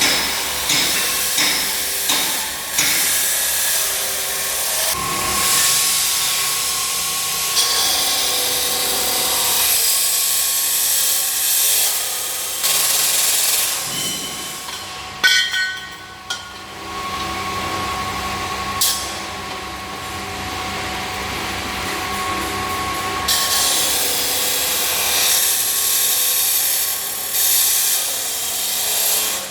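Metal fabrication machinery running with a loud, steady hiss and crackle over a faint machine hum, changing in character several times, with one sharp knock about fifteen seconds in.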